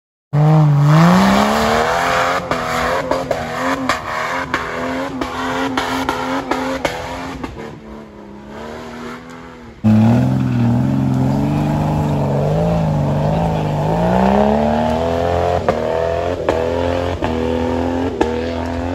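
Off-road 4x4's engine revving under load as it climbs a steep dirt trail, its pitch rising and falling with the throttle, with scattered sharp knocks. About ten seconds in, the sound cuts abruptly to another louder stretch of the same hard revving.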